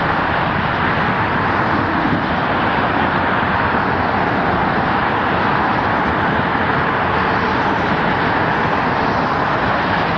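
Steady road traffic noise, an even wash with no distinct tones.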